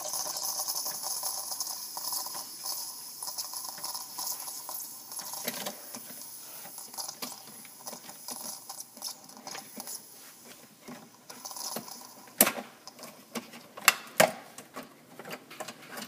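Tassimo T55 single-cup brewer at the end of a hot chocolate brew, depressurizing: a hiss of steam and air slowly fading out, with light ticking and rattling throughout and three sharp clicks about three-quarters of the way through.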